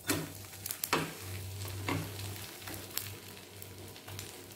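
A folded dosa sizzling in oil and butter on a hot tawa while a spatula is worked under it and flips it over, with a few sharp scrapes and taps of the spatula on the pan about a second apart.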